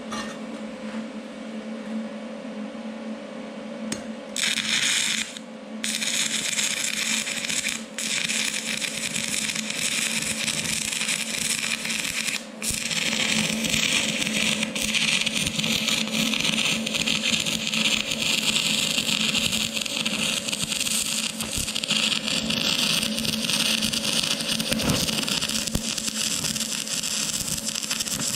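Stick welding arc from a 6011 electrode at 70 amps, struck about four seconds in: a harsh, steady crackle. The arc breaks briefly two or three times early on, then burns unbroken.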